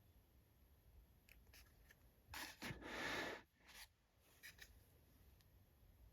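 Slime being handled by hand: a few faint soft clicks and crackles, and one louder squishing stretch lasting about a second, a little over two seconds in.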